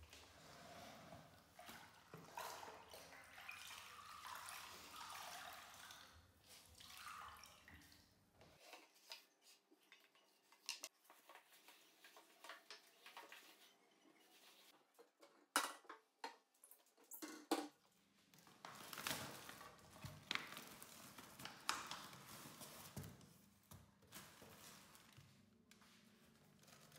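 Quiet household handling sounds: bottles and containers being moved and set down, with scattered sharp clinks and knocks, the loudest in the middle and latter part, after a soft noisy stretch in the first several seconds.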